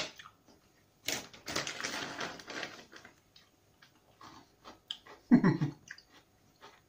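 Crisp crunching of a chilli rice cracker being bitten and chewed, densest between about one and three seconds in, with a few lighter crunches after. A short low 'mm' hum comes about five seconds in.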